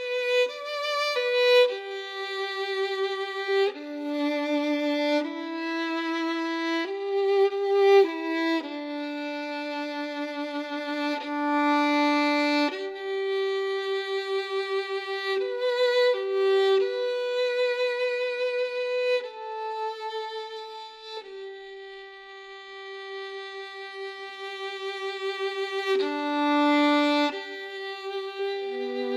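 Background music: a solo violin playing a slow melody, one held note at a time with vibrato.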